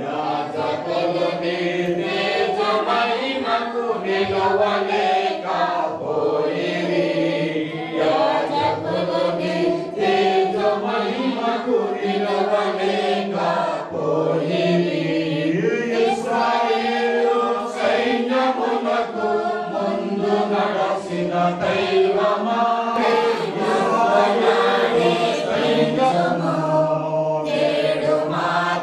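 A group of voices singing a Christian hymn together, steadily and without pause.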